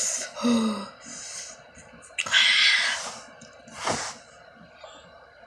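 A boy's voice: a short falling vocal cry about half a second in, then two loud breathy huffs, the first a little over two seconds in and a shorter one near four seconds.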